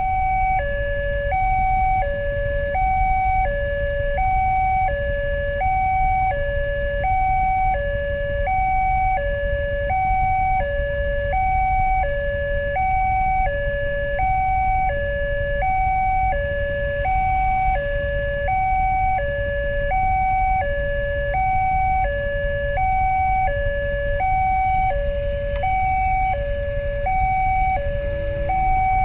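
Railway level-crossing warning alarm sounding from the loudspeaker on the crossing signal post: an electronic two-tone ding-dong alternating high and low, about one high-low cycle every second and a half, repeating steadily. It warns that a train is approaching and the crossing is closed. Underneath is a steady low rumble of idling motorcycles and traffic.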